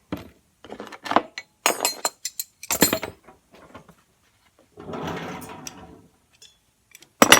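Metal tools and parts clattering and knocking as they are handled, then a brief hiss of gas from a hand torch lasting just over a second, and one last sharp click near the end.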